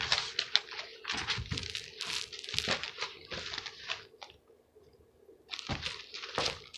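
Paper rustling and crinkling as sheets are handled and shuffled, in quick irregular crackles that pause about four seconds in and start again near the end.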